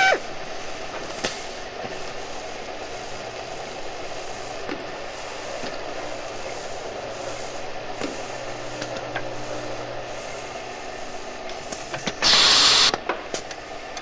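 Electric hand drill sound effect. The high motor whine cuts off right at the start, leaving a quieter steady hum with scattered clicks. Near the end comes one short, loud, rough burst of drill noise lasting under a second.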